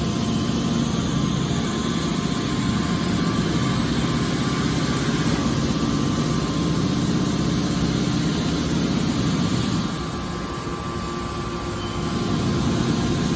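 Hydraulic scrap car baler running: a steady mechanical drone with a low hum, easing off about ten seconds in and building again near the end.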